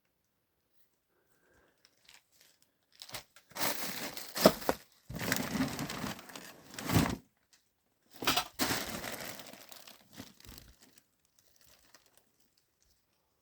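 Two bouts of rustling and crinkling noise, each a few seconds long, with a sharp knock about four and a half seconds in.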